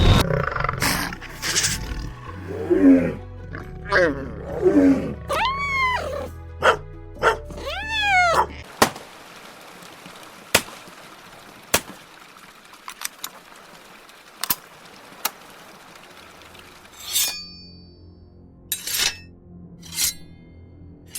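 A sound-effects montage over a music bed. First a run of animal roars and calls, several rising then falling in pitch. Then, from about 9 s in, a handful of sharp single pistol cracks and clicks, and near the end swords scraping in and out of their sheaths with a metallic ring.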